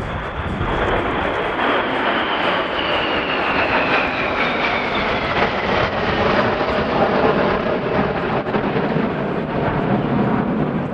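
Four BAE Hawk T.Mk.1 jet trainers flying past in close formation, their Adour turbofan engines making a loud, steady roar. A high whine falls in pitch over the first six seconds as the formation passes.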